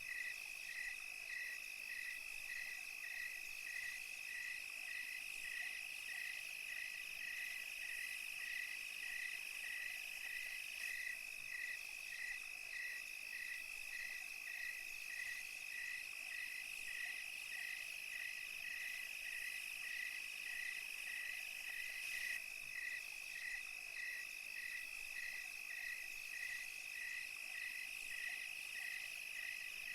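Night chorus of crickets and other insects: one steady high trill, with another caller chirping evenly about one and a half times a second, over a fine high buzz.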